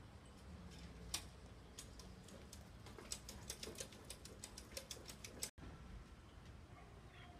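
A run of light, sharp ticks over a faint low background hum. The ticks are sparse at first, then come several a second from about three seconds in, and the sound drops out for an instant near the end.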